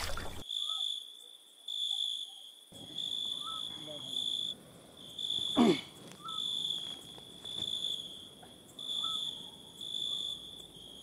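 Crickets chirping: a high, steady trill pulsing on and off about once a second. About halfway through, a brief sound sweeps quickly from high to low.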